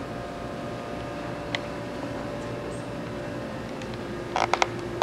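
Steady background hiss with a single light click about a second and a half in and a quick run of about four sharp clicks near the end.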